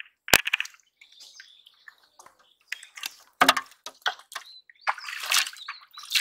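Wet splashing and squelching of a hand groping in a muddy, water-filled hole, with irregular sharp splashes. About halfway through comes a heavier wet knock, then a burst of splashing as a caught catfish flaps in a little water in a basin.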